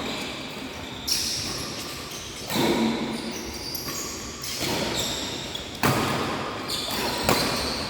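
Badminton rackets striking a shuttlecock in a rally: about four sharp hits, irregularly spaced a second or more apart, echoing in a large indoor hall.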